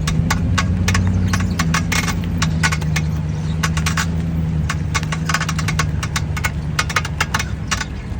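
Knocking and grinding from the rear right wheel area of a 2007 Audi A8 4.2 V8: irregular sharp clicks and knocks, sometimes in quick clusters, over a steady low hum. The owner cannot find the cause and wonders whether a heat shield is loose.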